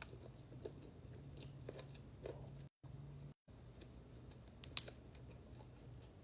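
Close-miked chewing and biting: small moist clicks and soft crunches of food in the mouth, over a steady low hum that the uploader puts down to a neighbour mowing the lawn. The sound cuts out to dead silence twice, briefly, about halfway through.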